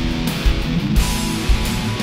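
Background music: guitar-driven rock with strummed electric guitar over a steady kick-drum beat, about two beats a second.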